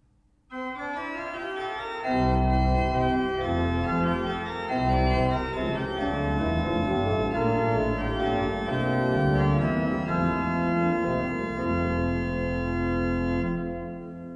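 Organ music: sustained chords that begin about half a second in, with deep bass notes joining about two seconds in, fading out near the end.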